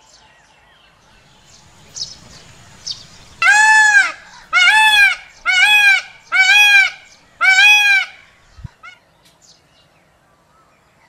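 Indian peafowl (peacock) calling: five loud, drawn-out calls in a row, about one a second, each rising and then falling in pitch.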